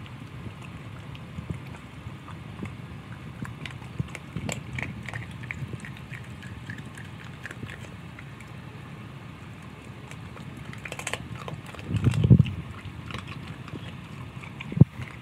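A dog eating raw organ meat from a stainless steel bowl: wet chewing and lapping with small clicks. There is a dull thump about twelve seconds in and a sharp knock near the end.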